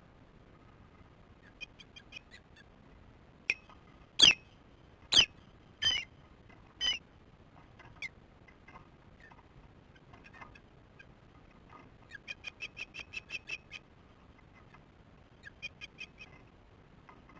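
Osprey alarm calls at an intruder near the nest: a few faint chirps, then four loud, sharp whistled calls about a second apart, later a rapid run of about eight chirps and a few more near the end.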